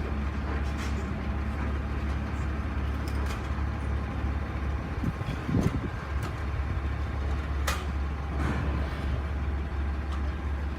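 Heavy diesel engine running steadily at a low, even pitch, with a few short clanks and knocks over it.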